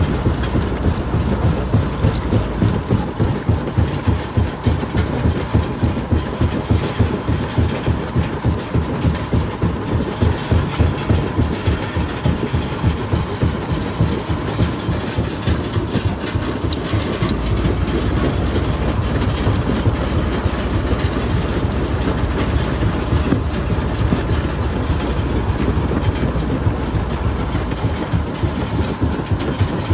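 Jaw crusher running and crushing stone, a fast, even pounding of several strokes a second. About seventeen seconds in, a deeper steady rumble rises under the strokes.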